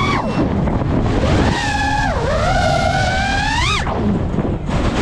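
FPV racing quadcopter's motors and propellers whining, the pitch rising and falling with throttle changes, over heavy wind rush on the onboard microphone. The whine drops out about a second in, climbs back to a sharp high peak just before four seconds, cuts out briefly and resumes near the end.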